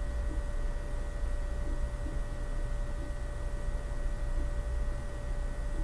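Steady low hum with a faint, thin steady whine held above it.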